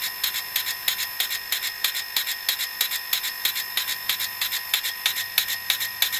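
Slotting head on a Bridgeport milling machine running, its ram stroking the cutting tool up and down over a workpiece in the vise during a trial keyway cut. Fast, regular clicking, several a second, over a steady high whine.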